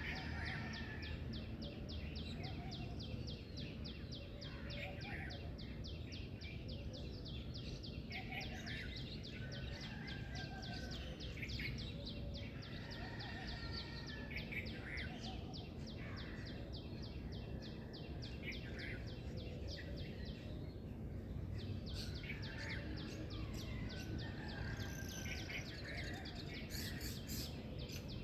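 Several birds chirping and calling in short phrases over a fast, even, high-pitched pulsing that briefly stops about two-thirds of the way in. A steady low rumble lies beneath.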